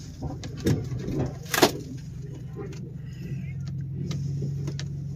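Chevrolet Silverado pickup's engine running steadily at low speed while towing a car off a trailer. A few sharp clicks and knocks come over it, the loudest about a second and a half in.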